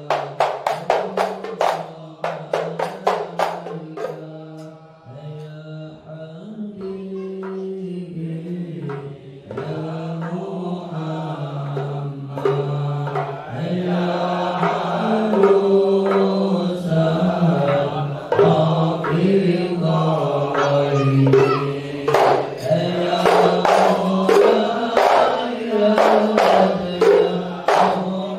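A group of men chanting sholawat in unison to hand-struck frame drums (rebana). A quick run of drum strokes at first dies away after about four seconds, leaving the voices alone, and the drumming comes back about halfway through, growing denser towards the end.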